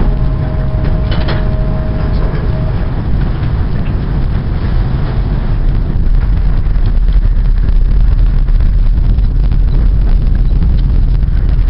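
Sped-up sound of the MV Kaleetan car ferry pulling away from its dock: a dense engine and propeller-wash rumble with wind on the microphone, growing louder from about halfway through. A few steady tones are heard in the first seconds.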